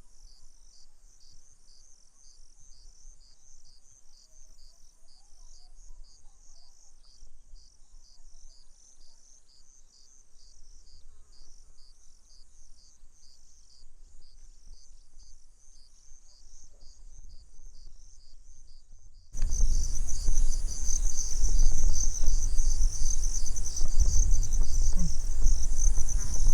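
Insects trilling steadily in a high, finely pulsed chirr. About three-quarters of the way in the sound jumps louder: the trill strengthens and a low rumbling noise joins it.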